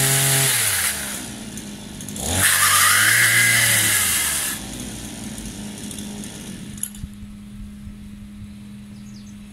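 Small engine of a multi-tool pole chainsaw running at high revs, dropping back about a second in, revving up again for about two seconds, then settling to a steady idle. A single sharp click sounds during the idle.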